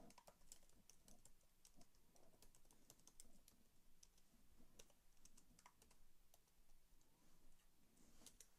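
Faint typing on a computer keyboard: irregular runs of light keystroke clicks.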